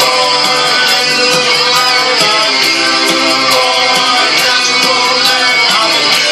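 Rock song playing, led by guitars over a steady drum beat.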